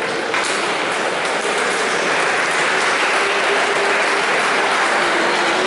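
Audience applauding, building over the first couple of seconds and then holding steady, as a game ends on the point that makes it 11-5.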